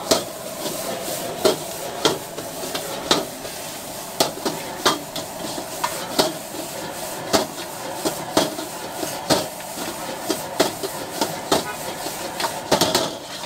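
Metal ladle and spatula striking and scraping a large wok while stir-frying noodles, a clank about twice a second over a steady frying sizzle.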